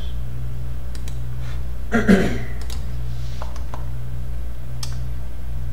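Steady low hum of a running desktop computer and hard-drive test rig, with a few scattered mouse and keyboard clicks. A brief vocal sound comes about two seconds in.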